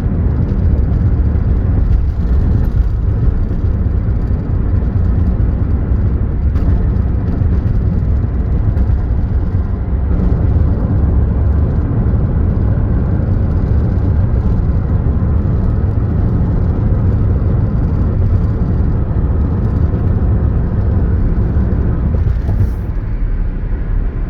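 Steady low rumble of a running car, with no distinct pitched engine note.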